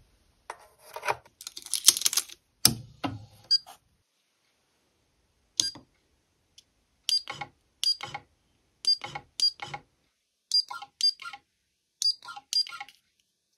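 Buttons on the S3018 Pro CNC's handheld offline controller being pressed to jog the machine by hand: about a dozen short clicks, each with a brief high beep, coming irregularly every half second to a second. Before them, a few seconds of rustling and clattering handling noise.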